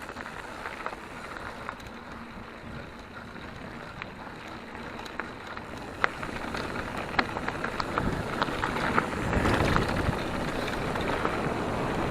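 Mountain bike rolling over a dirt and gravel trail: steady tyre noise and wind on the microphone, with scattered sharp clicks and rattles. It gets louder about two-thirds of the way in.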